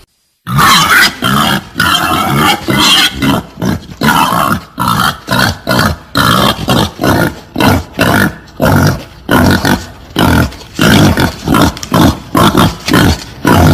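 Female wild boar grunting: after a half-second break, a few longer, drawn-out calls, then a rapid run of short grunts at about two a second.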